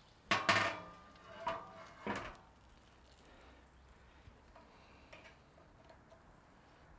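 Steel lid of a Pit Barrel smoker clanking and ringing as it is set down against the barrel: one loud clank about half a second in and two lighter ones over the next two seconds, then only a few faint taps.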